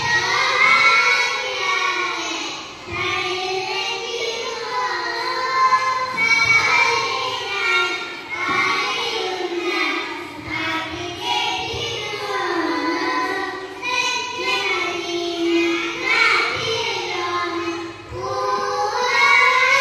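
A child singing a song in long, held phrases with brief pauses between them.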